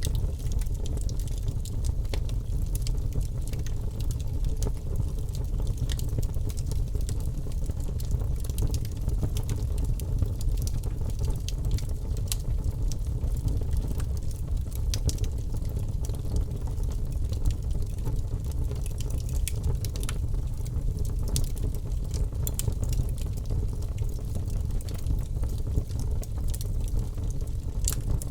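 Birch logs burning in a fireplace: a steady low rumble of the fire with frequent sharp crackles and pops throughout.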